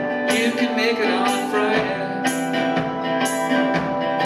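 Live band playing: a strummed electric guitar over a steady beat that hits about once a second, with a voice singing briefly in the first second or so.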